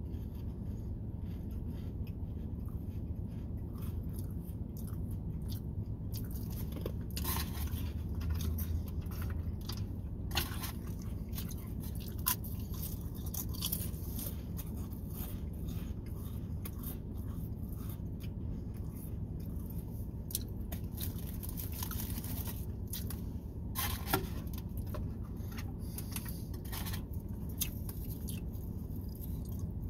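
A person chewing crunchy crackers close to the microphone, many short crisp crunches through the whole stretch.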